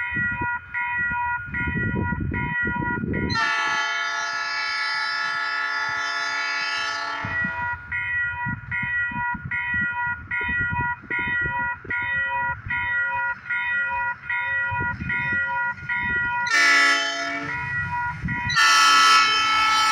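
Locomotive air horn sounding the grade-crossing signal: a long blast, later a short one, then another long one. Under it a crossing bell dings in a steady rhythm.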